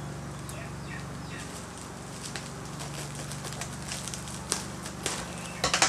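Scissors snipping through bubble wrap while hands handle it, the plastic crinkling in scattered sharp crackles, loudest in a quick cluster near the end.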